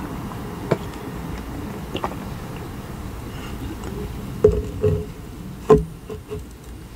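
Someone drinking from a bottle close to the microphone: quiet swallows and small clicks, then two short louder mouth sounds as the bottle comes down. Near the end the bottle is set down on the table with a sharp knock, the loudest sound.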